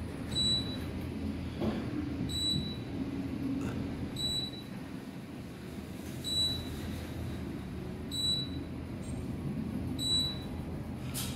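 Otis Series 2 elevator car travelling down, its floor-passing beeper giving a short high beep about every two seconds, once per floor, over the steady low hum of the ride.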